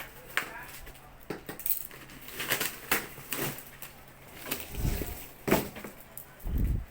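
Layered packaging being unwrapped by hand: irregular crinkling, rustling and small clicks, with a couple of dull handling thumps in the second half.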